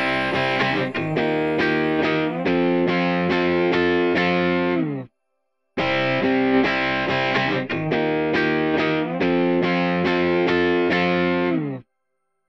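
Background music led by a distorted, effects-laden guitar. It stops dead for about half a second around five seconds in and again near the end, then resumes.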